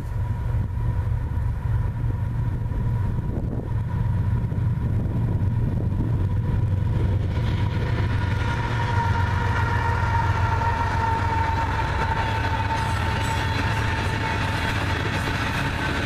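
Union Pacific freight train passing on the rails: a steady low rumble, joined about halfway by the louder rushing clatter of coal hopper cars rolling by, with a thin steady whine running through it.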